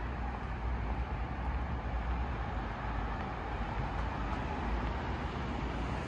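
Steady road traffic noise on a city street: a constant rumble of passing cars.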